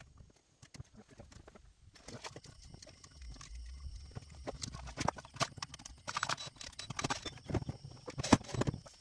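Hand tools being handled and rummaged through in a tool pouch: an irregular clatter of knocks and clicks that starts about two seconds in and grows busier and louder toward the end.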